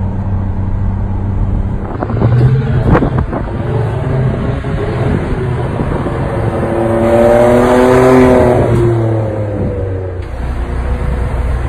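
Ferrari 599 GTZ Nibbio Zagato's V12 engine running. It drones steadily from inside the cabin, then, after a couple of sharp knocks about three seconds in, it is heard from the roadside as the car drives past, growing louder and then dropping in pitch as it goes by.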